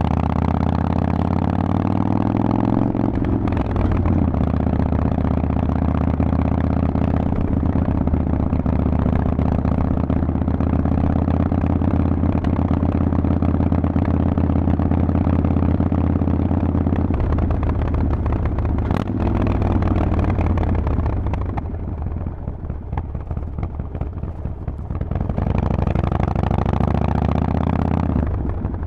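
Harley-Davidson Forty-Eight's 1200 cc V-twin running through a Vance & Hines aftermarket exhaust while riding. The revs climb at first, the pitch steps down once about three seconds in, and it then runs steady. Past the middle it eases off and goes quieter before it revs up again near the end.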